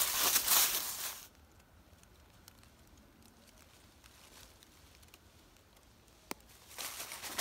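Footsteps crunching through dry fallen leaves, which stop abruptly about a second in; a few seconds of near silence with faint ticks and one sharp click follow, and footsteps in the leaves start again near the end.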